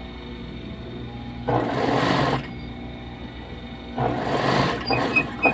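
Industrial sewing machine stitching a T-shirt sleeve seam in short runs: three bursts of sewing, about a second and a half in, about four seconds in and just before the end, with a steady hum from the machine between them.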